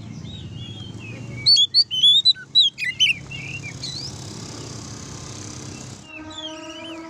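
Oriental magpie-robin (kacer) singing in the loud, open 'ngeplong' style: a rapid run of loud, varied whistled notes about a second and a half in, with softer whistled phrases before and after it.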